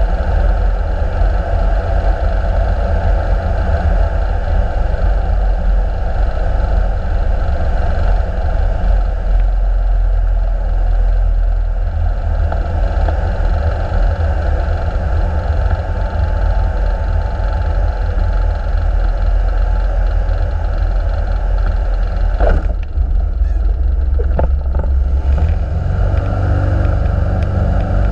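Light sport aircraft's engine and propeller heard from inside the cockpit, a steady loud drone mixed with airflow noise on a landing approach. A few sharp knocks come about three-quarters of the way through as the wheels touch down, after which the engine settles into a steadier, lower-pitched hum on the landing roll.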